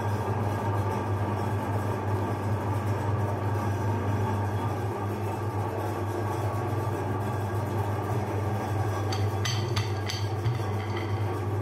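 Electric meat grinder motor running with a steady hum. A few short clinks of dishes near the end.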